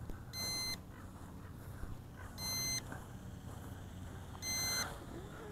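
Short high electronic beeps, one about every two seconds, three in all, from the drone's radio controller while the quadcopter flies its return-to-home.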